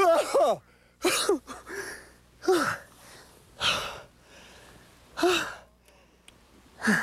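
A man's excited cries and gasps of elation: about six short outbursts without clear words, each falling in pitch, roughly a second apart.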